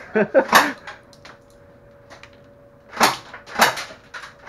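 Tokyo Marui AA-12 electric airsoft shotgun firing, with BBs clattering off the target. Short sharp shots come in the first second, then two louder shots about half a second apart near the end. A faint steady hum lies under the quiet stretch between them.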